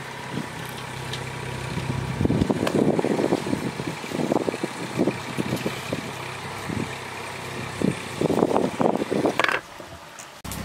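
Stone roller worked back and forth on a stone grinding slab (ammi kal), crushing wet masala paste: a run of rough scraping strokes.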